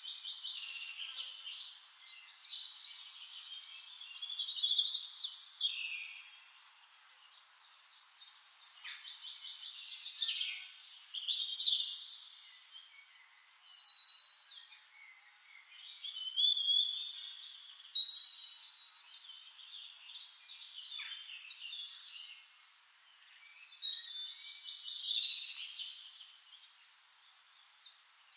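Songbirds singing: quick overlapping phrases of trills and chirps in bouts, with short lulls between them.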